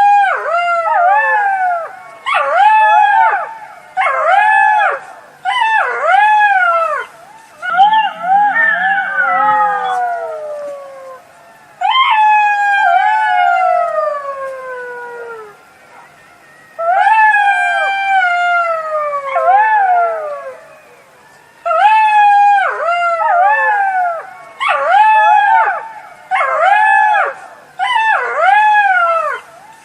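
Jackal howling: runs of short wailing calls that rise and then drop in pitch, broken by two longer calls that slide steadily downward, about twelve and seventeen seconds in.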